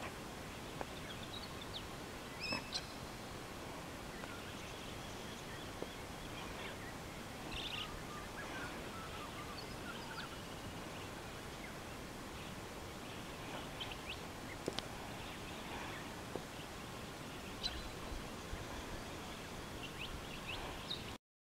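Outdoor bush ambience: a steady background hiss with scattered short bird calls and chirps, and a few faint clicks. It cuts off suddenly near the end.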